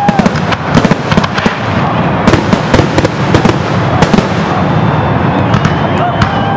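Fireworks display: aerial shell bursts crackling and popping in rapid, dense succession, with sharp bangs throughout. A steady high whistle comes in near the end.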